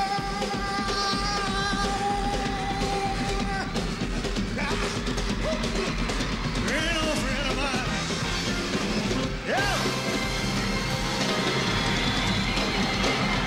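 Live rock-and-roll band with drum kit playing a fast number, with voices singing over it. A held chord at the start breaks off about four seconds in.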